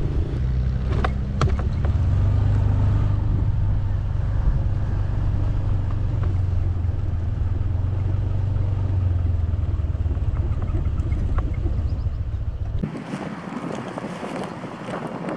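Small motorcycle engine running steadily at low speed along a rough dirt track, with a few knocks from bumps about a second in. The engine cuts off near the end, leaving a rustling hiss of wind and grass.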